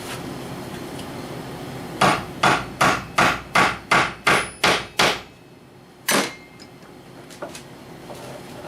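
A hammer driving tacks through leather into a wooden rifle rest. A quick run of about nine blows, about three a second, starts about two seconds in, followed a second later by one more blow.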